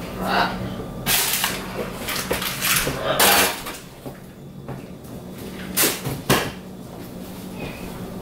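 Kitchen handling sounds: clatters and rustles as containers are moved about, with two sharp knocks about six seconds in.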